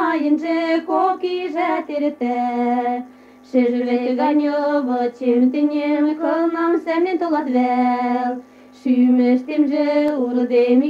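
A woman singing a Mari folk song about a young man, unaccompanied, from an archival 1975 recording. She sings in long held and gliding notes, with two short pauses for breath.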